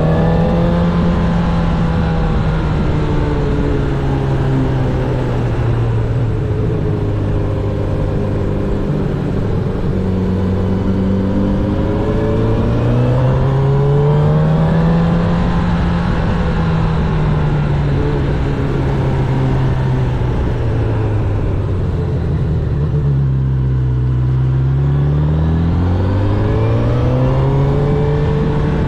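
Honda CB1000R's inline-four engine under way, its pitch rising and falling smoothly as the throttle is rolled on and off. The engine note dips lower about two-thirds of the way through, then climbs again.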